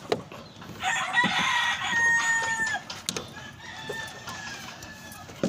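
A rooster crowing: one loud call of about two seconds that drops in pitch at the end, followed by a fainter second crow. A few light clicks and knocks sound in between.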